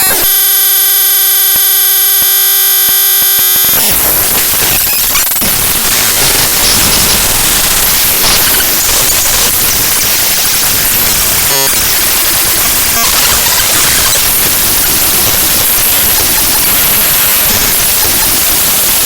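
Raw binary data of the ffmpeg.exe program file played back as audio. For about the first four seconds it is a harsh buzz of many steady stacked tones, then it turns to loud, dense static-like noise.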